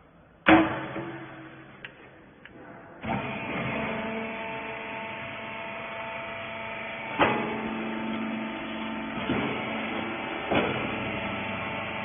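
A hydraulic rag baler. A sharp metal clank comes about half a second in, as its chamber handle is worked. From about three seconds its electric motor and hydraulic pump run steadily with a hum, broken by a few clunks about 7, 9 and 10.5 seconds in as the press works.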